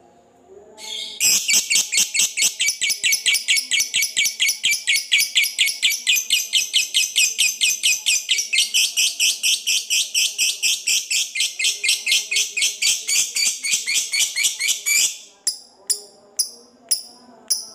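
A lovebird's long 'ngekek' chatter: a fast, unbroken run of shrill notes, about five or six a second. It starts about a second in, holds for some fourteen seconds, then breaks into a few separate chirps near the end. This is the long chatter that fighter lovebirds are kept for, used to provoke rival birds into answering.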